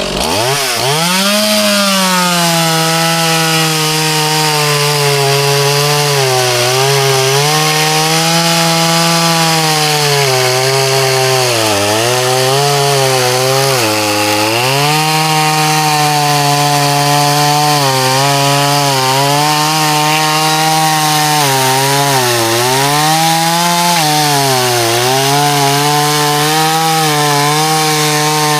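Two-stroke chainsaw running at high revs as it cuts wood. Its pitch sags and recovers several times as the chain loads up in the cut.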